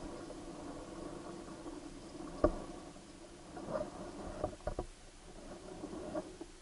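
Muffled underwater sound picked up through a submerged camera's housing in river water: a steady low hum with a handful of sharp knocks. The loudest knock comes about two and a half seconds in, and a quick cluster follows between four and five seconds.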